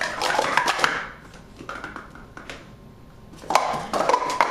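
Plastic Speed Stacks sport-stacking cups being stacked and down-stacked at speed on a stacking mat: quick runs of plastic clacking and clattering. A dense burst in the first second, a quieter stretch with a few taps, then a second burst of clatter about three and a half seconds in.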